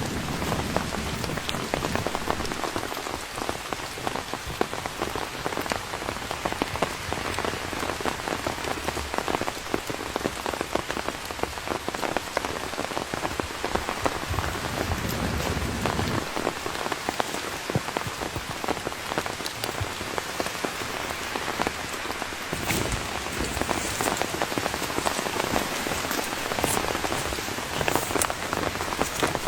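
Steady rain falling, with many separate drop hits heard throughout and a few sharper ones near the end.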